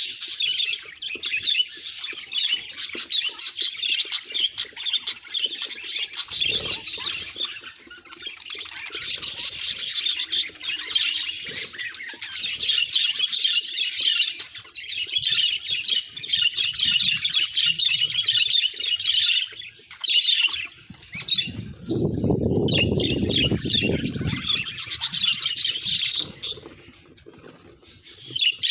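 Budgerigar chattering in a long run of rapid chirps and warbles, with a short low fluttering noise a little over twenty seconds in.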